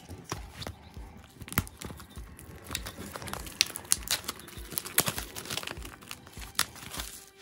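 Plastic shrink wrap being peeled and crinkled off a CD album case: irregular crackles and rustles of the film, with a few sharper snaps.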